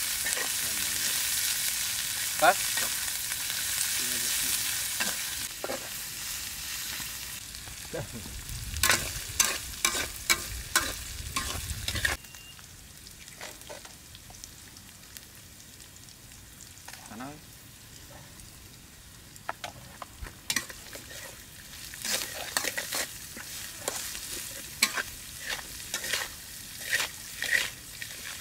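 Vegetables, chilies and herbs sizzling in hot oil in a steel wok, stirred with a metal spatula that scrapes and clacks against the pan. The sizzle is loud for the first several seconds and then dies down, while the spatula strokes come in quick clusters.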